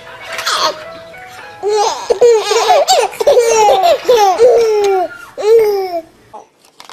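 Two babies laughing and cooing at each other: a string of high laughs, most of them falling in pitch, loudest through the middle and stopping shortly before the end.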